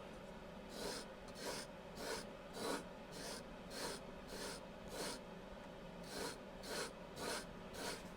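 A carving knife being sharpened, its blade drawn over a sharpener in short, even rasping strokes, about three every two seconds, starting about a second in.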